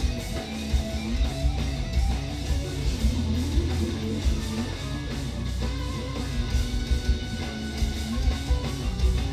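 Live progressive metal instrumental: extended-range electric guitars playing fast moving riffs over heavy bass and drums.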